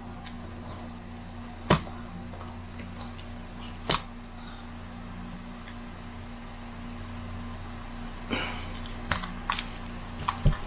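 Utility knife scoring the metal face of a peel-and-stick backsplash tile along a straight edge: a few sharp clicks about two seconds apart, then a short scrape and a quick run of clicks near the end. A steady low hum sits underneath.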